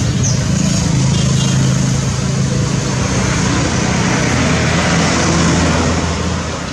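A road vehicle's engine running loudly, with a low steady hum under a wash of noise, easing off a little near the end.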